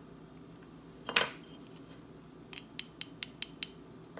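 Small sharp metallic clicks from hands handling a ring and a metal-cased folding jeweler's loupe: one louder click about a second in, then a quick run of about six clicks, some five a second, past the halfway point.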